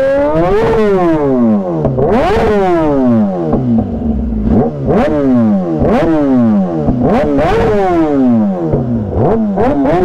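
Superbike engines being revved hard in sharp throttle blips, about seven or eight in a row. Each rev climbs quickly in pitch and then falls back, and some of them overlap.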